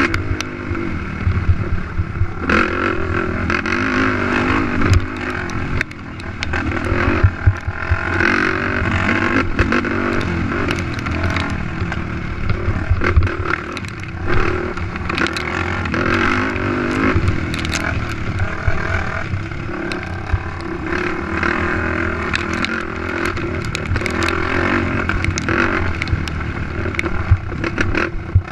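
Sport quad engine racing, revving up and easing off again and again under the throttle, with many sharp knocks and clatter from the machine over the rough track. Its level dips briefly about six seconds in.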